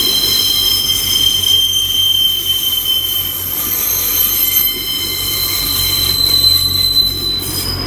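Wheels of a Transport for Wales Class 143 Pacer diesel unit squealing against the rails as it moves slowly past, a loud, high-pitched squeal of several tones that shift in pitch, over a low rumble from the train.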